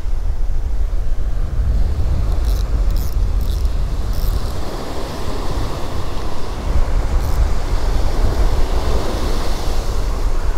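Wind buffeting the microphone in a steady low rumble over the wash of breaking surf. A few faint high ticks about three seconds in.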